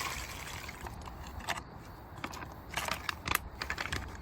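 Rustling and scattered sharp clicks of food packaging being folded and handled.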